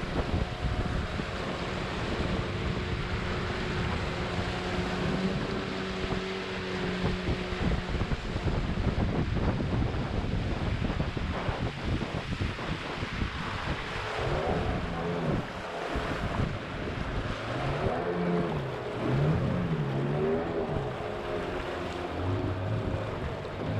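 A riverboat's outboard motor running under water rush and wind buffeting on the microphone. The engine holds a steady note at first, then from a little past the middle its pitch rises and falls over and over as the throttle is worked up and down.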